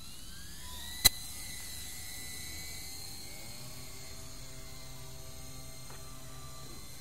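Esky Lama V4 coaxial RC helicopter's electric motors and rotors whining as they spin up, rising in pitch over the first second, then a steady whine as it lifts off and flies. A single sharp click about a second in is the loudest sound.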